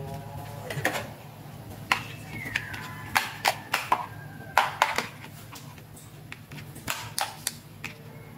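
Hard plastic toy high-heel shoes clicking and knocking as they are handled and tapped together: a dozen or so sharp clicks, clustered in the middle and again near the end, over a steady low hum.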